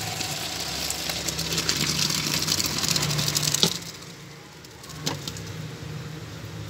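Hot rice water gushing and splashing from a steel pot into a plastic colander in a steel sink, draining boiled rice, with a low steady hum underneath. The pouring stops with a sharp knock about halfway through, and a softer knock follows about a second later.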